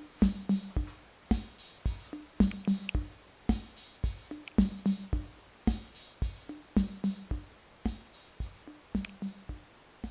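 Background music: a drum-machine beat of kick and hi-hat strokes, about two beats a second.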